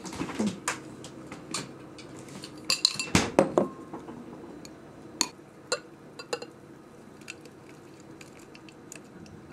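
Clinks and knocks of kitchen glassware and a spoon: a glass measuring cup set down on a table and a spoon tapping against glass, loudest in a cluster about three seconds in, followed by scattered light ticks.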